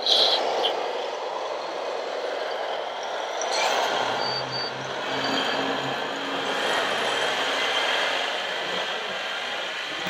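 Radio-controlled scale construction machines at work: a steady whirring hiss from the models' motors and hydraulics, a little louder at the start.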